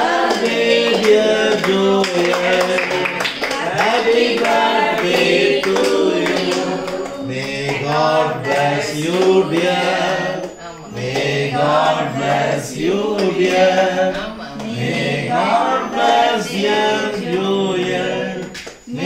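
A group of adults and children singing a birthday song together.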